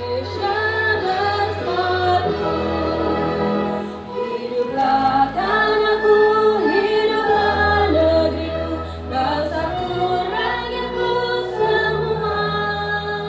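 Background music with layered, choir-like singing over a steady bass.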